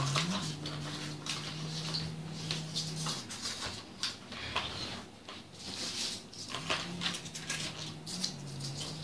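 Hands handling a plastic PVC wiring tube and pieces of polystyrene foam packing: scattered small clicks, taps and rustles. A low steady hum runs under it for the first three seconds and again near the end.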